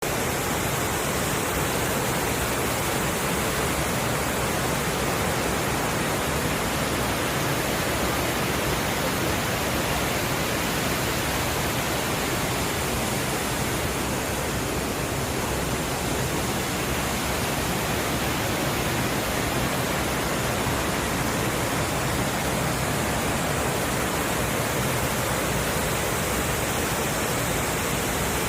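Mountain stream rushing over rocks, swollen after rain: a steady, even rush of water.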